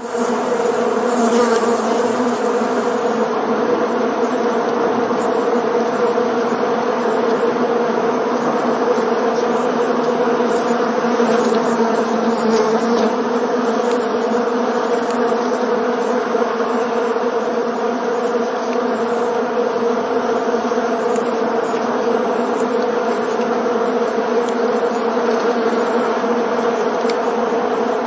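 Many bees flying around together, a steady dense buzzing hum of a swarm that holds at a constant level throughout.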